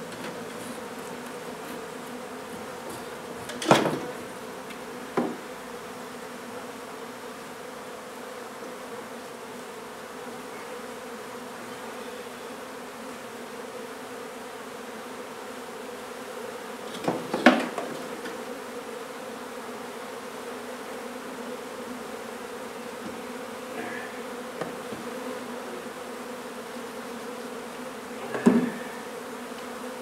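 A honey bee colony buzzing steadily as its comb is cut out and handled. A few sharp knocks from wooden frames being handled break in, the loudest about four seconds in, about seventeen seconds in, and near the end.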